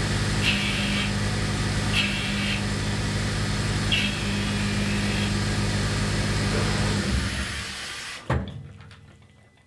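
Omniturn CNC lathe running a cut under flood coolant: a steady motor and pump hum with coolant spray, and three brief higher-pitched bursts along the way. About seven seconds in the machine winds down, a single sharp click comes a second later, and the sound fades away.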